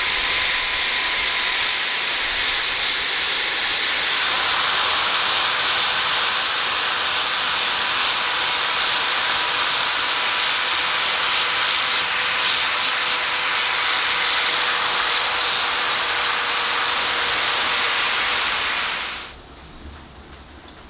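Electric sanding tool running steadily against the metal of an old clothes iron, a continuous abrasive hiss over a faint motor hum, stopping abruptly near the end.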